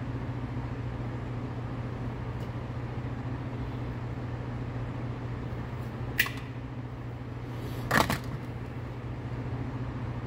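Two sharp metal clicks from a folding multitool's pliers working cannon fuse, the second, about eight seconds in, louder than the first, over a steady low hum.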